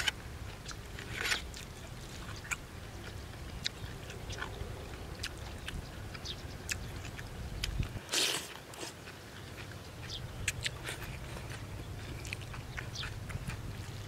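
A man eating rice noodles and fresh vegetables close to the microphone: chewing with many small wet clicks and smacks, and a louder slurp of noodles about eight seconds in. A steady low wind rumble sits underneath.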